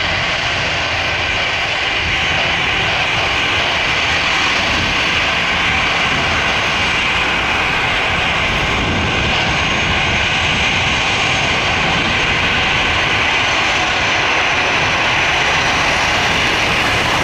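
Four-engine Airbus A340's jet engines running at low taxi power as the airliner rolls and turns onto the runway: a steady rushing whine.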